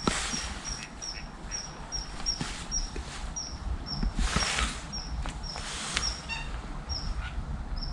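Common kingfisher calling: a long run of short, high, piercing whistles, about two to three a second, each dipping slightly in pitch, spacing out towards the end. Two brief rushing noises come in around the middle.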